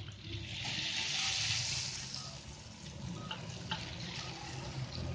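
A raw opak cracker sizzles loudly as it goes into hot cooking oil in a wok, then keeps bubbling steadily as it fries and puffs. A few light clicks of a metal spatula against the wok come about three and a half seconds in.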